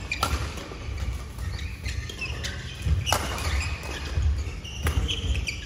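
Badminton court sounds: short high squeaks of court shoes on the court mat, a few sharp racket-on-shuttlecock hits, and low thuds of footsteps.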